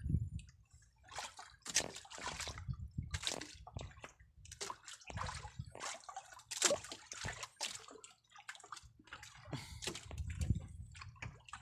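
Wet monofilament handline being hauled in hand over hand with a hooked fish on it, water sloshing and dripping off the line in irregular swishes.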